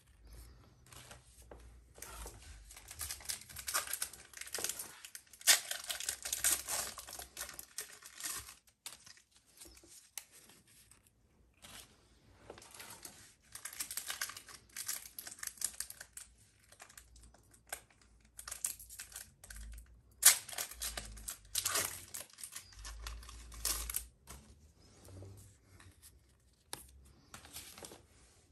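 Pokémon booster pack foil wrappers being torn open and crinkled, along with cards being handled, in irregular spells of rustling with quieter gaps between. Low bumps from hands working close to the microphone sit under the rustling.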